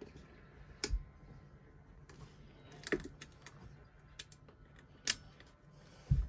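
Hands fitting a hard plastic fuse box onto its mounting bracket: a few separate sharp clicks and taps about two seconds apart, with a dull knock near the end.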